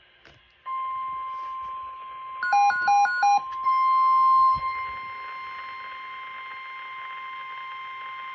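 Emergency Alert System test: the NOAA Weather Radio alert tone, one steady high beep, starts under a second in and holds on. About two and a half seconds in, three quick beeps of a different pitch sound over it.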